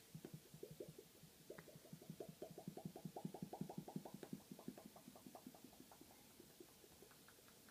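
A man making a funny noise: a rapid, even run of soft hollow pops, about six a second, growing louder and then tapering off.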